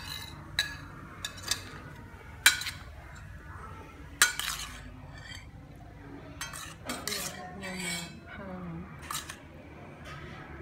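Kitchen utensils and dishes clinking: about ten sharp, irregularly spaced clinks of metal against bowls or plates, some ringing briefly, as food is handled and mixed.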